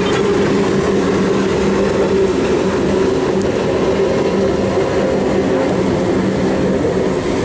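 Racing powerboat engines running flat out, a continuous drone whose pitch holds steady.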